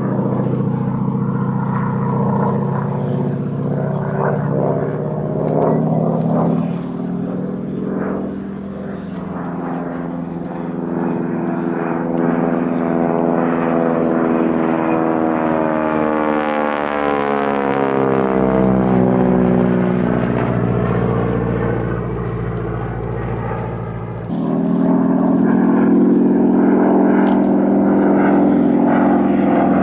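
A Noorduyn Harvard IIB's Pratt & Whitney R-1340 Wasp radial engine and propeller in flight during an aerobatic display. The engine note glides up and down in pitch as the aircraft manoeuvres, and grows suddenly louder about 24 seconds in.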